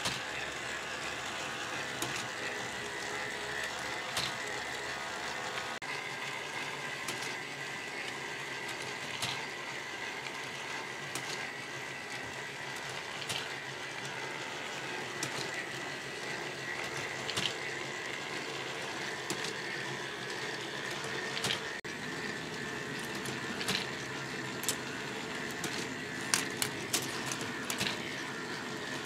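All-K'NEX plastic parts-feeder machine running off a single electric motor: a steady whir of plastic gears and mechanisms with a thin steady whine. Sharp clicks come about every two seconds, with a quick run of clicks near the end.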